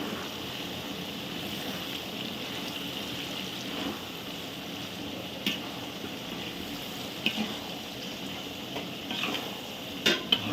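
Onions, dried chillies and curry leaves frying in oil in a large cooking pot as they are stirred, a steady sizzle. There are a few sharp clicks about halfway through and a couple more near the end.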